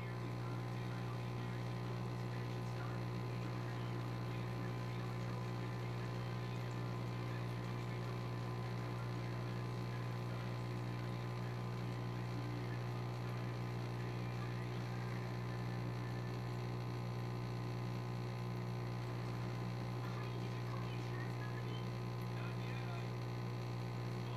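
Steady, unchanging low hum of an aquarium air pump driving a sponge filter, with a faint fizzy crackle above it.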